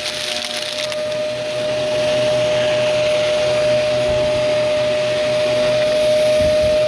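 Vacuum cleaner running with a steady motor whine while crunchy debris crackles as it is sucked up, the crackling densest in the first second; the run grows a little louder about two seconds in.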